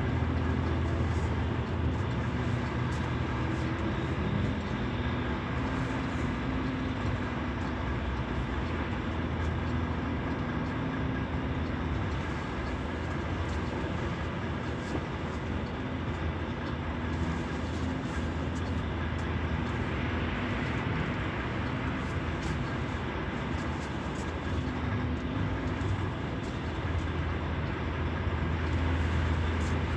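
A steady, low engine rumble with a droning hum underneath, continuous and without breaks.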